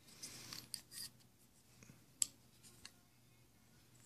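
Rob Douglas flipper knife being handled: faint rubbing of the scales, then one sharp metallic click about two seconds in as the blade snaps over, with a couple of tiny ticks around it.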